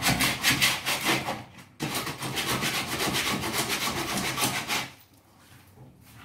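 Hand sanding of a wooden cupboard: quick, even back-and-forth rubbing strokes of abrasive on wood. The strokes come in two runs with a brief break about two seconds in, and die down about five seconds in.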